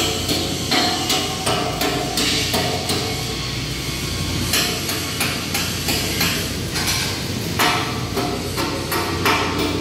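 Hammer striking steel in a regular rhythm, a little more than one blow a second, each strike ringing briefly, over a steady low hum.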